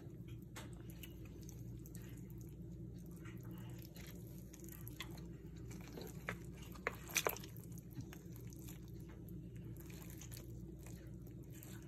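Metal tongs and a fork pulling apart a tender braised pot roast in its juices: soft wet squishing with scattered light clicks, the loudest a few quick clicks about seven seconds in. A steady low hum runs underneath.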